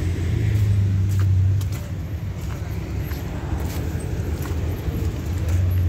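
A motor vehicle engine idling, a steady low hum that is louder for the first two seconds and again near the end.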